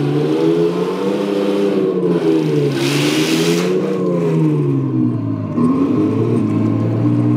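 Simulated tank engine sound from a Henglong 1/8 all-metal Tiger 1 RC tank's sound unit, its pitch rising and falling with the throttle as the tank drives. A brief hiss comes about three seconds in.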